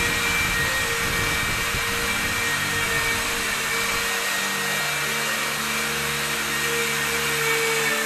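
Steady whirring hiss of a motor-driven machine running, like a blower or compressor, with a few faint steady tones. A low rumble under it drops away about halfway through.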